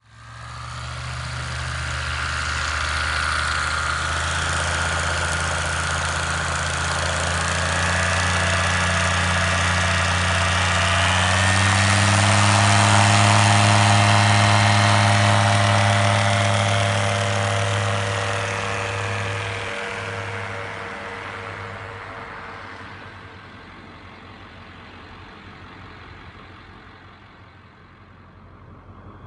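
Engine and propeller of a RANS S7S light-sport plane on skis running steadily, then rising in pitch as power comes up for a takeoff run through snow. It is loudest about 13 seconds in, then fades away as the plane departs.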